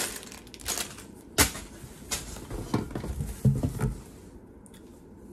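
Items being handled and lifted out of a cardboard shipping box: a few sharp knocks and clicks of boxed goods and packaging, with a brief low murmur of a voice about three and a half seconds in.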